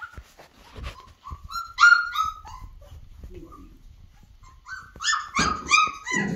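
Flat-coated retriever puppies, 24 days old, giving short high-pitched yelps. There are two quick runs of about five or six yelps each, one about a second in and one near the end, with faint knocks between them.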